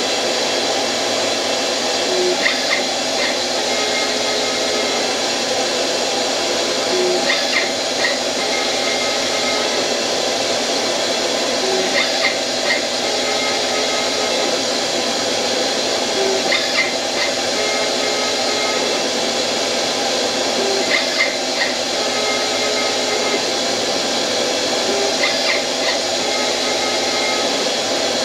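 CNC-converted metal lathe running a canned cycle that turns a rounded end on a knob: a steady spindle and motor hum, with a short burst of higher whines coming back about every four and a half seconds as the axis motors step the tool through repeated passes.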